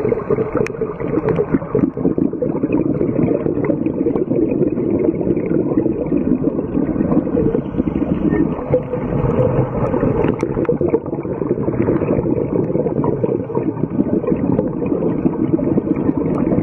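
Underwater noise on a scuba dive: a steady rushing, gurgling wash with faint scattered clicks.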